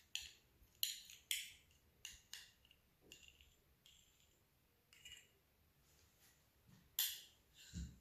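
Faint, scattered clicks and light scrapes of metal utensils against a glass mixing bowl of flour as a spoonful of honey goes in. The sharpest click comes about seven seconds in.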